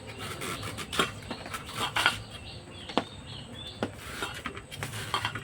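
A raw potato being grated by hand in long strokes: irregular rasping scrapes with a few sharp knocks, roughly once a second.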